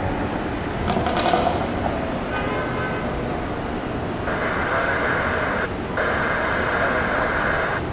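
Steady rumble of jet airliner engines. A higher hiss cuts in twice with sudden starts and stops, about four seconds in and again about six seconds in.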